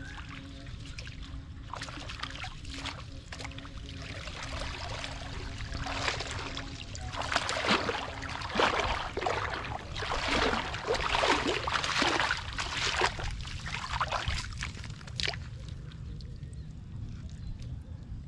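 Muddy pond water sloshing, splashing and pouring as a woven bamboo basket is worked through the water and lifted, draining through its weave. The splashing and pouring are heaviest in the middle of the stretch, then die back to a low steady background.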